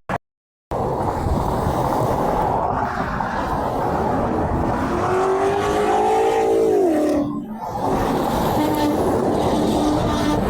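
Highway traffic rushing past, with a semi truck's air horn sounding for about two and a half seconds midway through, its pitch dropping as the truck goes by. A fainter, lower horn-like tone follows near the end, and the audio cuts out for a moment right at the start.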